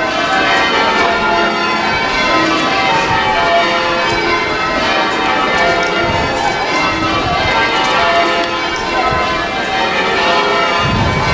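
A ring of church bells being rung full-circle in change ringing, the strokes overlapping in a continuous peal of ringing tones. A low rumble comes in near the end.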